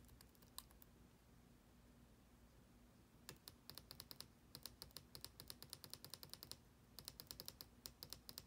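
Faint clicking of a 2016-2017 MacBook Pro butterfly keyboard key, the 9 key, pressed rapidly over and over to test it after its contacts were cleaned. A couple of presses near the start, then a fast run of about six clicks a second from about three seconds in, a short break, and another run near the end.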